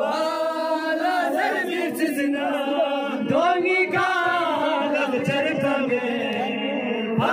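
Group of men's voices chanting a noha, a Muharram mourning lament, together in a steady chant.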